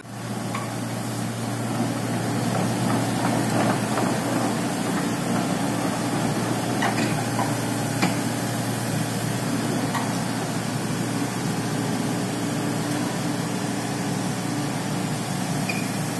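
Komatsu PC78 hydraulic excavator's diesel engine running steadily under load as the boom, arm and bucket are worked, with a few light knocks from the machine in the middle.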